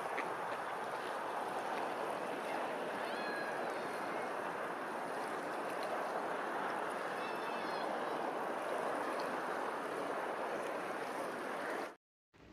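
Steady rush of open water lapping, with faint high bird calls twice, cutting off suddenly near the end.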